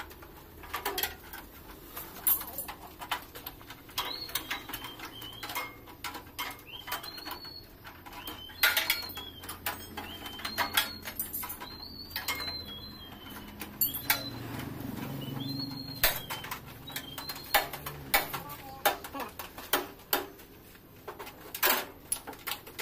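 Irregular sharp clicks and knocks of hand-tool work on a jeep being stripped down, with short high chirps repeating about once a second.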